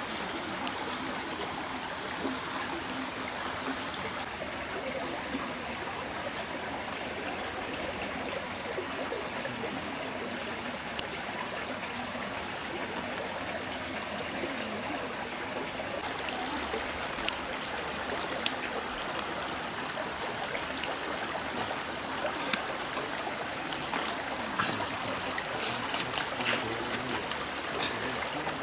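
A forest stream running steadily, water trickling and splashing over rocks, with a few sharp clicks scattered through the second half.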